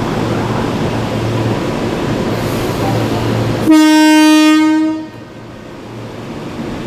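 Train running with a steady rumble, then one loud train horn blast of about a second and a half, a single steady note, a little past halfway; the rumble is quieter after it.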